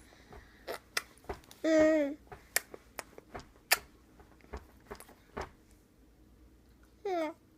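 A baby's voice: a short pitched squeal about two seconds in and a shorter one falling in pitch near the end, with scattered sharp clicks and smacks in between.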